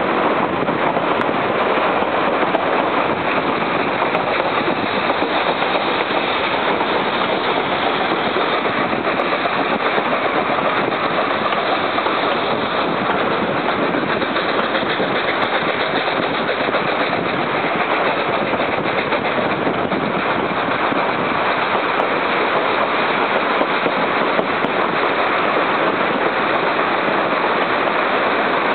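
Steady running noise of the Durango & Silverton narrow-gauge steam train in motion, heard from aboard: wheels rolling on the rails mixed with the rush of air past the car, unbroken throughout.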